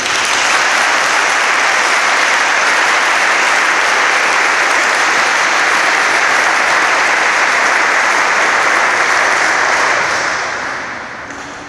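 An audience applauding: sustained clapping that starts at once, holds steady for about ten seconds, then dies away near the end.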